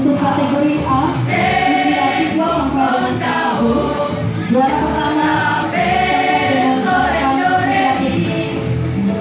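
Mixed youth choir singing into microphones, amplified over a PA speaker, with an electronic keyboard accompaniment keeping a steady beat in the bass.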